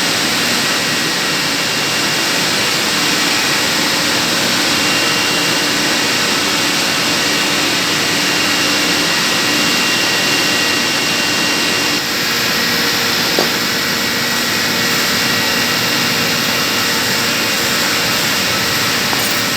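Steady, loud running noise of chiller plant-room machinery, with a few faint steady whining tones in it. A single small tick comes about thirteen seconds in.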